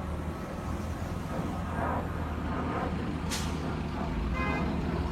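Large diesel vehicle running with a steady low rumble, with a short sharp hiss of air about three seconds in.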